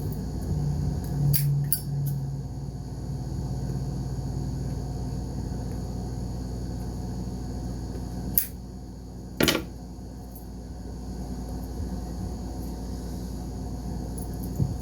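Steady room hum, as from an air conditioner, with four short sharp clicks or taps: two about a second and a half in, and two more around eight and a half and nine and a half seconds in.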